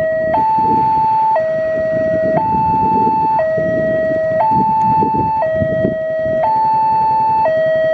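Railway level-crossing warning alarm sounding two alternating electronic tones, a higher and a lower one, each held about a second, over the rumble of a train running on the track.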